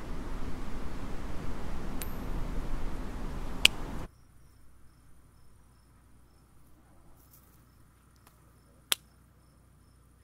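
A steady rushing noise with two sharp clicks cuts off suddenly about four seconds in. Faint, even cricket chirps follow, about two a second, with one sharp click near the end.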